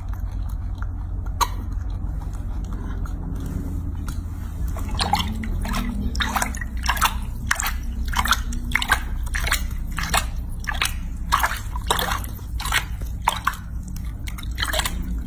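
Baby macaque chewing a piece of orange with wet lip-smacking clicks, about two a second, starting about five seconds in, over a steady low hum.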